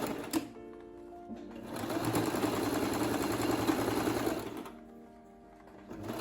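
Sewing machine stitching a zip in place with a zipper foot, running in bursts: briefly at the start, then a longer steady run from about two seconds in until past four seconds, and starting up again at the very end.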